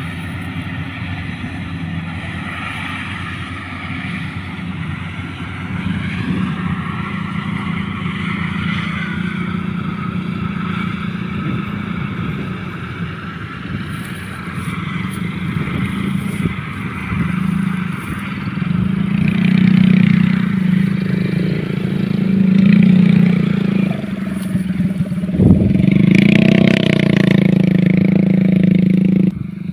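An engine running steadily, swelling louder twice in the second half, with a single knock a little before the loudest stretch.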